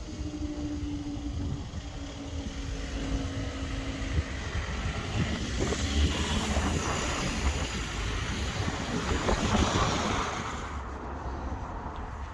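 Road traffic passing close by: a vehicle's sound swells to its loudest in the middle and falls away near the end.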